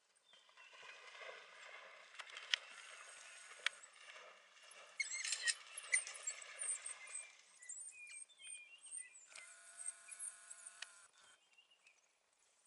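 African wild dogs calling during play: faint, high-pitched twittering and squeaking, with a cluster of chirps about halfway through and a longer held call near the end. A couple of sharp clicks are heard in the first few seconds.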